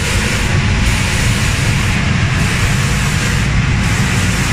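Automatic spray-painting machine running: a steady hiss from the spray guns over a low machine hum, with no break or change.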